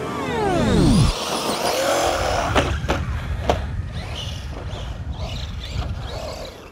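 Team Associated Rival MT10 RC monster truck's brushless electric motor whining and dropping sharply in pitch as the truck comes off the throttle, running on a 3S battery. A rumbling noise follows, with fainter whines, and a few sharp knocks come near the middle.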